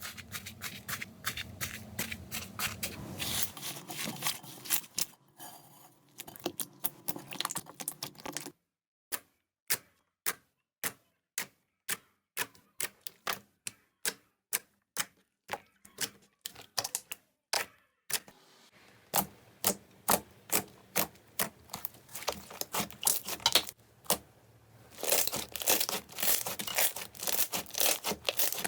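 Slime being handled close to the microphone, making dense crackling and clicking. In the middle stretch this becomes evenly spaced sharp clicks, about two or three a second with silence between, then turns to dense crackling again.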